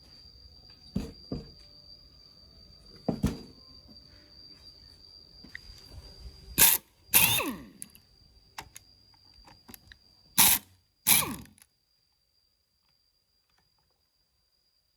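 A series of sharp knocks and clatters from tools and parts being handled. A few loud ones come after the middle, two of them trailing a brief falling tone, and then the sound cuts out suddenly to silence.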